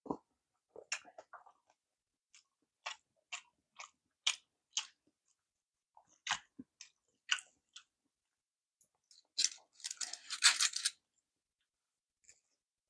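Close-miked eating sounds: a string of short, sharp, wet mouth clicks from chewing sushi, a few a second. About nine seconds in comes a louder crackly burst lasting a second or two.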